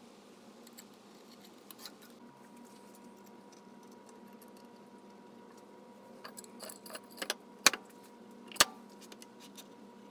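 Metal parts of a CNC router being handled, steel linear-rail carriages and aluminium plate, clinking and clacking: a run of light clicks about six seconds in, then two sharp metallic knocks about a second apart.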